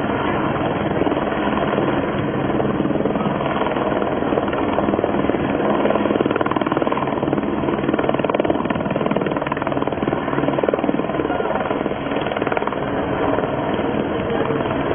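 Light helicopter hovering, its rotor blades chopping steadily.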